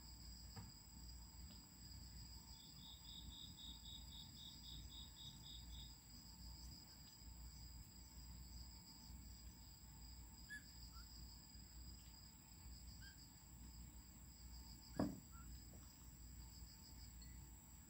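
Faint night insects chirping steadily in high, pulsing tones, with one short run of about a dozen quick even chirps early on. A single sharp knock about fifteen seconds in is the loudest sound.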